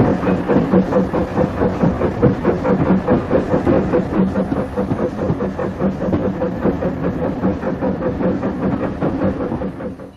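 00 gauge model tank locomotive with a DS10 motor running with a train of coaches. The wheels make a dense, rapid clicking over the track, with a steady motor hum underneath.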